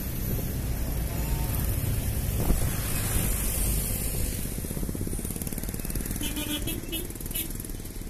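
Steady low rumble of engine and road noise from passing traffic. A few short high-pitched notes sound near the end.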